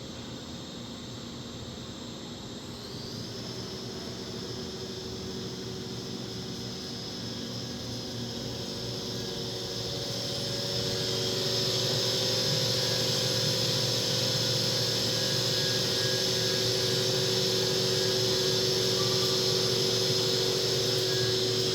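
Hurco VMX50i CNC vertical machining center running under power: a steady mechanical hum with a high hiss and whine, stepping louder about three seconds in and again about ten seconds in.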